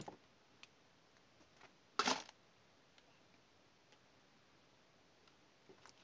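Handling noise from hands working a wire lead onto the switch in an opened plastic drill housing: a short clattering rustle about two seconds in and a few faint clicks.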